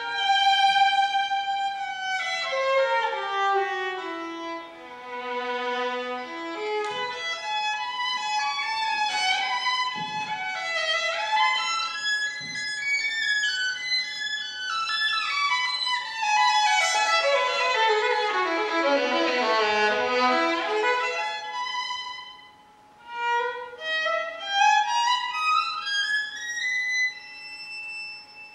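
Solo violin playing rapid scale runs that sweep down from high to low and back up again several times, with a brief pause about three quarters of the way through before more rising runs.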